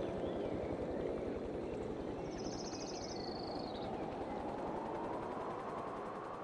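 Steady rushing outdoor ambience with a short, high, rapid bird trill about two and a half seconds in.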